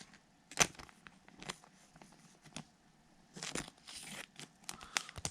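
Baseball cards and their packaging being handled: a string of short, sharp snaps and rustles. The loudest comes about half a second in, and a longer rustle runs from about three and a half to four seconds.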